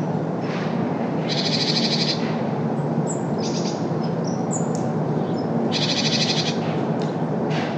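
Steady hum of road traffic, with a bird calling over it: two chattering calls of under a second each, about a second in and near six seconds in, and a few short high chirps between them.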